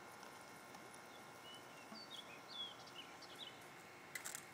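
Quiet outdoor background: a few faint, short bird chirps in the middle over a steady low hiss, with a brief rustle or spatter near the end.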